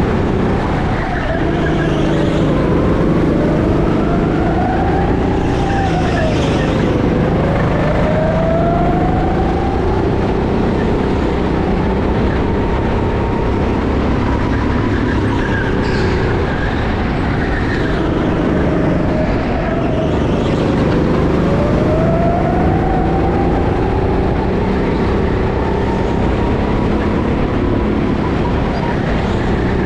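Go-kart motor heard from the driver's seat, running continuously during a race. Its pitch dips twice and climbs back as the kart slows and speeds up again.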